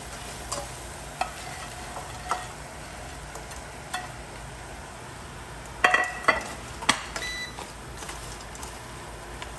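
Crispy fried pork pieces tumbling into a sizzling pan of sautéed vegetables and sauce, stirred with a slotted spatula that scrapes and knocks against the pan. A cluster of sharp knocks about six seconds in is the loudest part.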